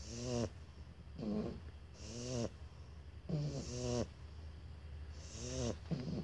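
Two sleeping Shar Pei puppies snoring in turn. Each breath is a short pitched snore that bends up and down, with a hiss of air, about one a second.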